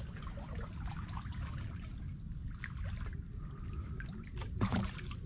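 Creek water trickling and lapping as someone wades through it, with small scattered splashes, the sharpest about four and a half seconds in, over a steady low rumble.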